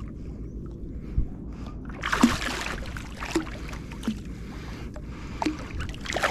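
Sea water and wind around a fishing kayak: a steady low rumble with a few light knocks on the hull, and a brief loud rush of noise about two seconds in and again near the end.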